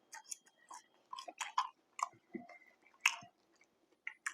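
Close-miked crackling and clicking of fast-food paper packaging being handled, in quick irregular bursts.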